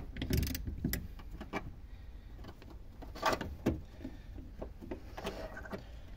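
Scattered light knocks and clicks of a hand tool and plastic fuel-pump parts being handled at the open fuel-tank access of a car, about half a dozen in all, with quiet between them.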